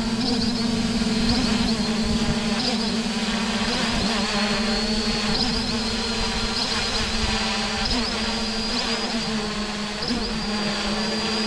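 Holybro X500 v2 quadcopter's four motors and propellers buzzing steadily while it hovers, with brief wobbles in pitch about every second and a half as the autotune twitches the airframe.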